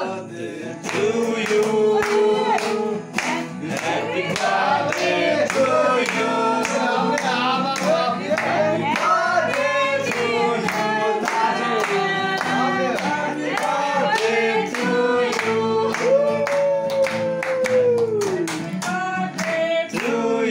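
A group of people singing a birthday song together, with steady hand clapping in time. Near the end one long note is held and then falls away.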